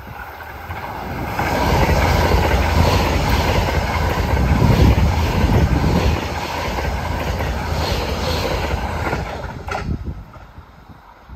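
JR West 681/683-series limited-express electric train passing close by at high speed. A rush of wheel and air noise builds over the first couple of seconds, stays loud through the middle, and drops away about ten seconds in.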